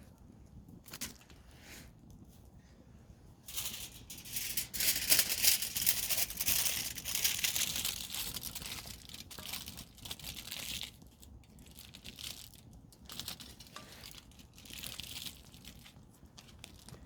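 Campfire crackling, with a dense run of crackles and hiss from about four to eleven seconds in, then scattered quieter pops.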